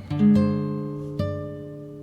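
Acoustic guitar music: plucked and strummed notes that ring out and fade, with a few new notes struck about a quarter, half and one and a quarter seconds in.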